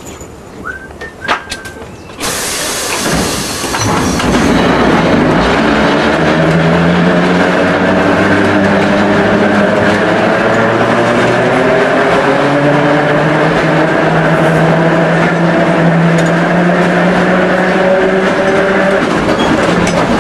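Santa Teresa electric tram running along its track, heard from aboard the open car: a steady rattle and rumble of wheels on rails with a motor hum that slowly rises and falls in pitch. The loud running noise sets in about two seconds in after a few clicks and builds for another two seconds before holding steady.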